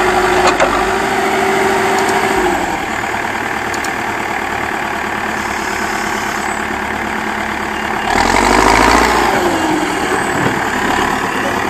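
Diesel engine of a Terex backhoe loader running, with a steady whine in the first couple of seconds. About eight seconds in the engine noise swells louder for about two seconds, then settles back.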